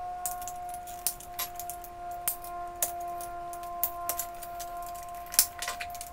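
Small plastic clicks and rattles of wall-socket modules being handled and shifted in a plastic mounting frame, over faint held tones of background music.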